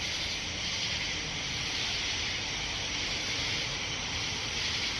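A steady, even chorus of insects: a continuous high hiss with no breaks or single calls standing out.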